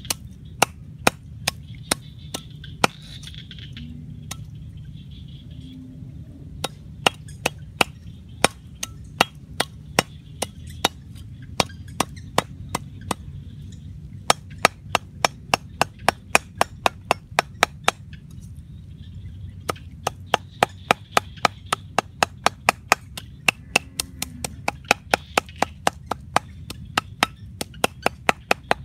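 Meat cleaver chopping crab pieces on a round wooden chopping block: sharp knocks, about two a second at first, then quick runs of three or four a second, with a brief pause about two-thirds of the way through.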